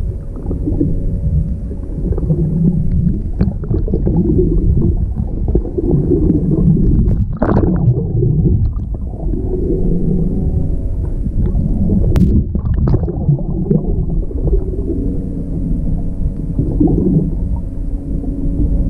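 Underwater sound picked up through a camera's waterproof housing: a continuous muffled, swelling rumble and gurgle of moving water, with a faint steady hum and two sharp clicks, about seven and twelve seconds in.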